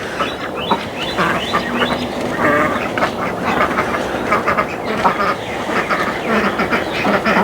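A flock of ducks quacking repeatedly, many short calls overlapping.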